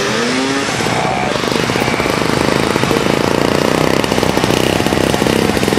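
Engine of a red Capri vintage snowmobile running with a rapid buzzing pulse, growing louder from about a second and a half in as the sled comes past.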